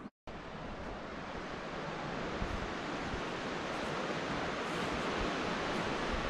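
Ocean surf washing around sea stacks below the cliffs: a steady rushing that grows slowly louder.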